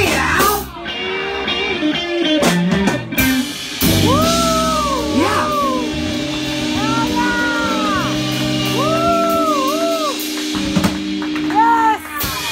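Live rock band playing an instrumental passage: drum kit with held chords and a lead line of notes bending up and down.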